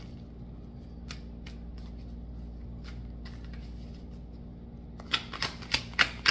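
Deck of oracle cards being shuffled by hand, overhand. Faint scattered card ticks at first, then about five seconds in a quicker run of sharp card snaps, about three a second.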